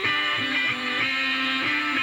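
Amplified electric guitars playing strummed chords and held notes, an instrumental stretch of a rock song with no singing.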